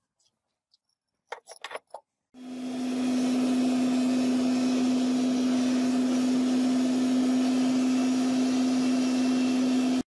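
Homemade gas forge running: a few short clicks, then about two seconds in a steady loud hiss with a strong low steady hum comes on quickly and holds level, cutting off abruptly at the end.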